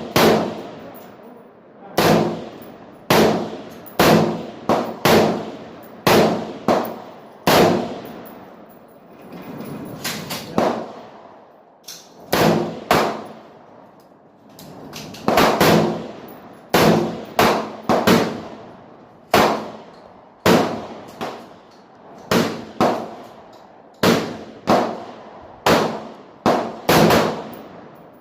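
AR-15 semi-automatic rifle fired one shot at a time at an irregular pace, about two dozen sharp reports with a ringing tail after each. There are short pauses near the middle.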